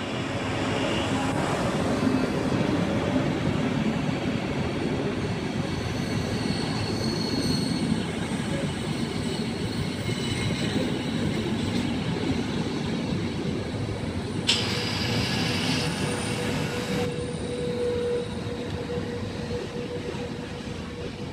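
Frecciabianca passenger train pulling slowly into the station alongside the platform, its wheels rumbling steadily as the locomotive and coaches roll past, with thin squealing tones from the wheels and brakes as it slows to a stop. A short rush of hiss comes about two-thirds of the way through.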